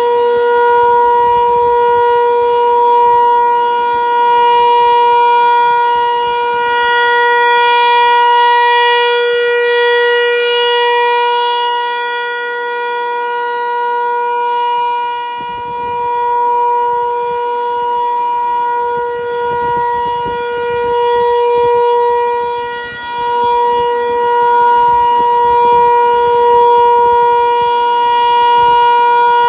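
Federal Signal 508 rotating outdoor warning siren holding a steady tone during its monthly test, loud and swelling and fading every several seconds as its rotating head sweeps around.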